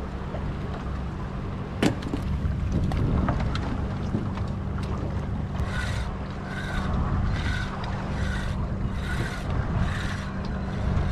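Boat engine running with a steady low hum under wind, one sharp knock about two seconds in, then from about the middle a spinning reel being cranked in short, even bursts, about one every 0.7 seconds, as a fish is reeled in on a bent rod.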